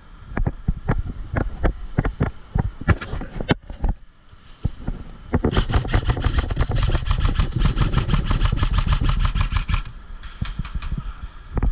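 Airsoft electric gun firing on full auto, a rapid even burst of about four seconds starting a little past the middle, after a few seconds of irregular sharp clicks and knocks.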